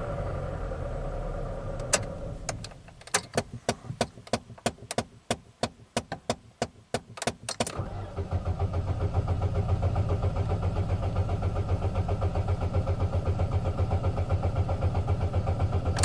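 2.2L Ecotec four-cylinder engine of a 2008 Pontiac G5 cranking on the starter in clear-flood mode, pedal floored so it does not fire, from about halfway through. The compression pulses come in an even rhythm, about six a second, that sounds super consistent: a sign of even compression across the cylinders. Before the cranking there is a steady hum that stops about two seconds in, then a run of sharp clicks.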